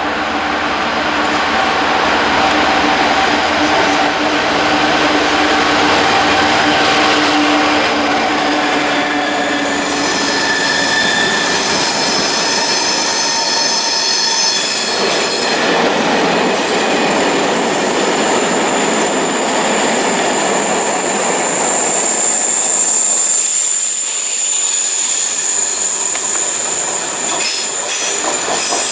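GB Railfreight Class 66 diesel locomotive 66751 passing through with its two-stroke EMD diesel running, followed by a long rake of freight wagons rolling by. From about ten seconds in, the wagon wheels squeal with steady high-pitched tones over the rumble of the wheels.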